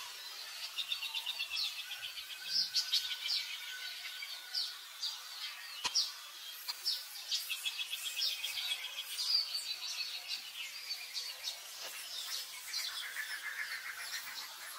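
Newborn macaque infant crying in a rapid, continuous series of short, high-pitched squeals and chirps. A single sharp click comes about six seconds in.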